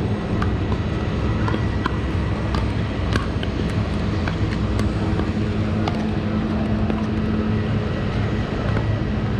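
Pickleball paddles striking the plastic balls on several courts, sharp pocks at irregular intervals, over a steady low hum.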